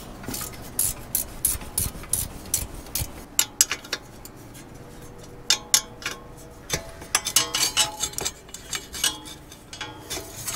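Scattered metal clicks, clinks and scraping from hand work on an ATV's rear disc brake caliper and its bent mounting bracket as the two are worked off the axle together, a few clinks ringing briefly.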